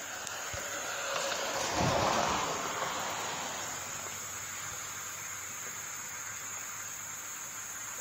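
Steady high-pitched drone of insects in the trees, with a broad rushing noise that swells about two seconds in and then eases off.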